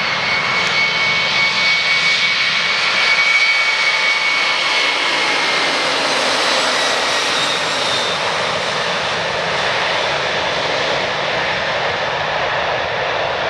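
Twin jet engines of a Boeing 767 airliner running as it passes on the runway and moves away: a steady jet roar with a high whine that drops slightly in pitch about five seconds in.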